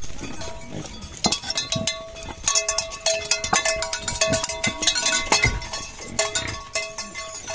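Several metal bells clanking and ringing at a few different pitches, struck again and again in an irregular rhythm.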